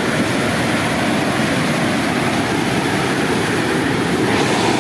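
Water rushing over a river dam's waterfall, a loud steady roar of falling water.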